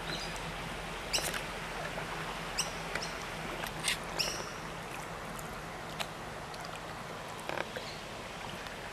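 An inflatable rowing boat moving through still floodwater: a steady wash of water from the oars, with short high squeaks every second or two.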